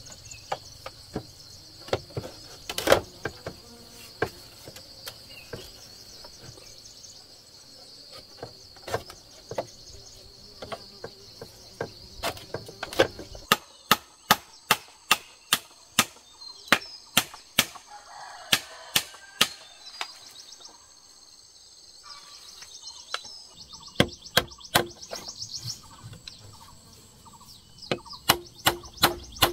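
Repeated sharp blows of a hand tool on wood, scattered at first, then steady at about two a second from about halfway through, with a pause before they start again near the end. Insects chirp steadily throughout.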